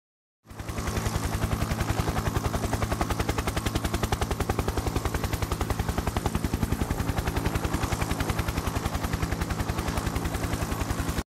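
Helicopter rotor blades beating in a rapid, even rhythm as it hovers close by. The sound fades in about half a second in and cuts off abruptly near the end.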